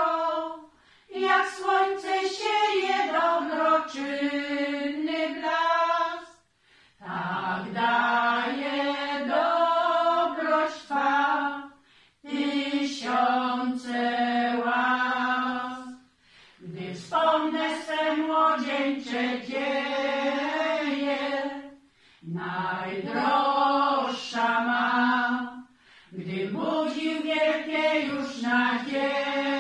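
Women's choir singing a slow hymn a cappella, in sung phrases of about five seconds each with short pauses for breath between them.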